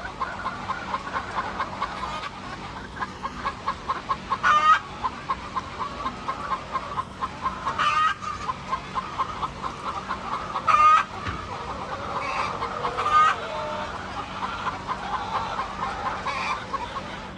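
Hens clucking in a rapid run, with four louder squawking calls breaking through.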